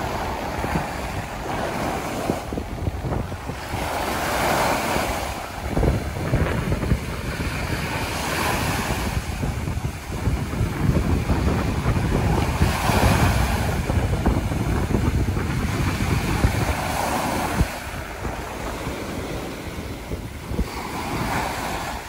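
Small waves breaking and washing up a sandy beach, a fresh surge of surf about every four seconds, with wind buffeting the phone's microphone in a steady low rumble.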